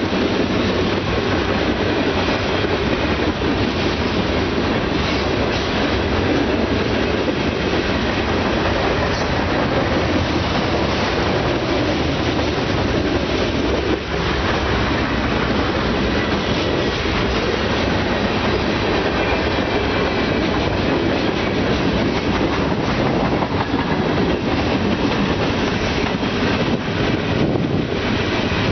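Union Pacific mixed freight train's cars rolling past at track speed: a steady, loud rumble and rattle of steel wheels on the rails.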